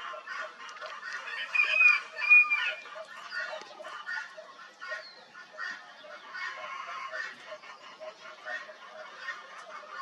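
Many birds calling at once in a dense chorus of short chattering calls, with a few loud, clear whistled notes about two seconds in.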